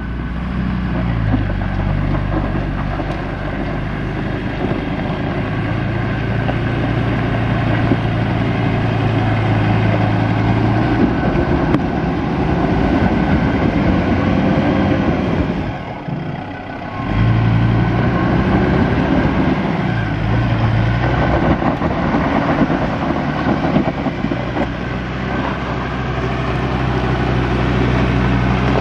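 Ford Ranger PX ute's engine working under load as it crawls over a rutted off-road climb. About two-thirds of the way through the sound drops away briefly, then picks up again with a rise in pitch.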